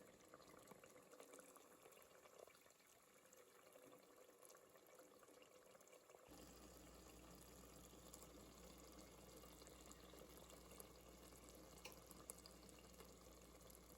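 Near silence with faint liquid sounds. About six seconds in, a low steady hum comes in.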